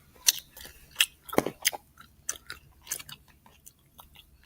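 Slime being squished and handled, giving a string of irregular sticky clicks and crackles.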